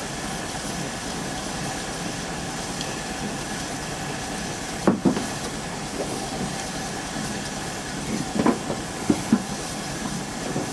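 Steam launch under way, its steam engine running steadily with a steady hiss of steam. A few brief knocks stand out about halfway through and again near the end.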